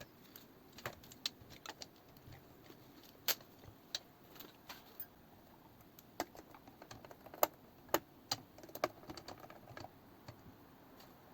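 Sparse, irregular light clicks and taps of computer parts and hardware being handled and fitted into a PC case, a few sharper ticks standing out among them.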